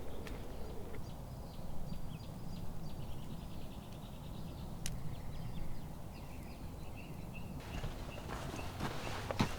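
Outdoor ambience: small birds chirping faintly and repeatedly over a steady low rumble, with a few soft knocks and a sharp click near the end.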